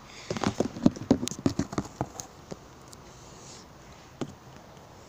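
Handling noise as a phone is positioned and set up on a plastic table: a quick, irregular string of clicks and knocks over the first two seconds or so, then a single knock about four seconds in.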